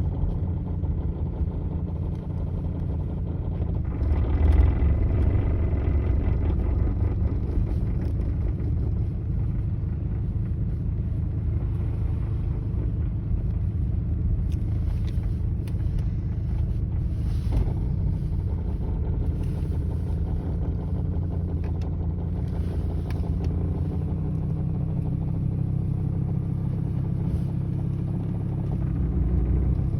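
Engine of an 850R running steadily, a little louder about four to seven seconds in, with an odd noise in it that the owner cannot explain.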